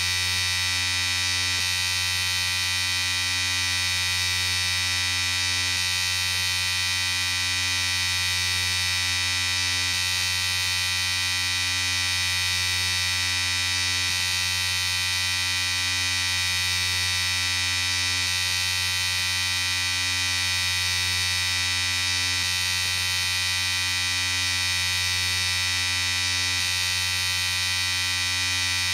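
Electric shaver running continuously with a steady, even buzz.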